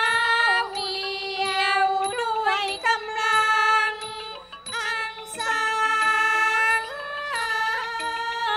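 Thai classical ensemble music accompanying khon dance: a melody of long held, overtone-rich notes stepping between pitches with ornaments at each change, over light ticks repeating about every half second.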